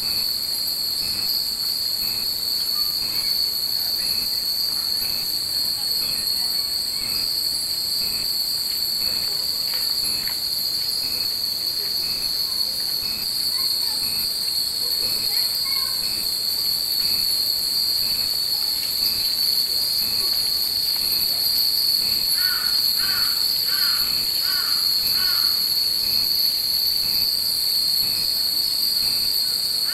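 Cicadas shrilling in a steady, loud summer chorus. In the second half a crow caws about six times in a row.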